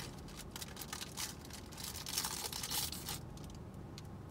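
A foil protein-bar wrapper being torn open and crinkled, in a run of crackles that is loudest about two to three seconds in.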